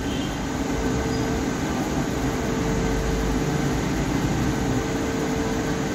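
Steady background noise with a constant faint hum, unchanging throughout: room noise, like a running fan or air conditioner in the workshop.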